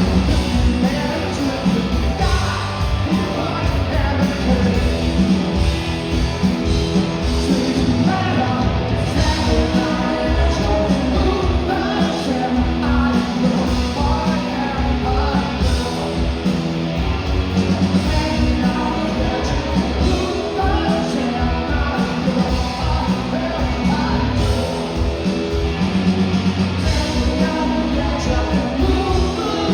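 Live rock band playing loudly: drums, bass and guitars under a singer's voice.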